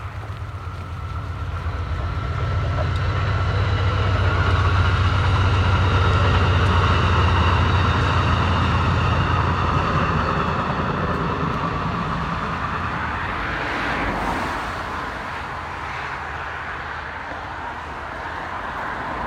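A large vehicle passing close by: a low engine hum builds over the first few seconds, holds, then slowly fades, with a steady high whine above it.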